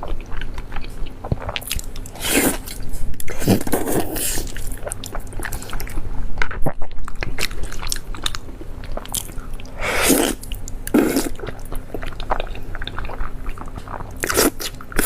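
A person chewing and biting food close to the microphone, with several louder crunching bites scattered through.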